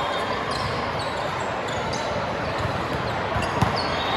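Indoor gym ambience during volleyball play: a steady murmur of voices, short sneaker squeaks on the court floor, and ball thumps, the sharpest one about three and a half seconds in.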